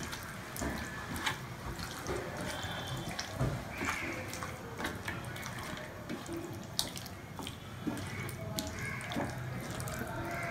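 Hands squeezing and mixing raw bone-in chicken pieces in a yogurt-based marinade in a metal plate: wet squelching, with scattered small clicks.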